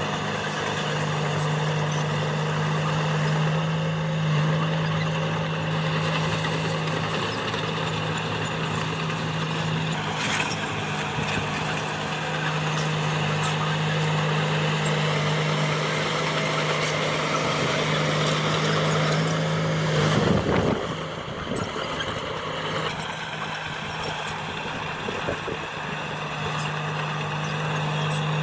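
Diesel engine of heavy earthmoving machinery running steadily, with a brief loud burst of noise about twenty seconds in.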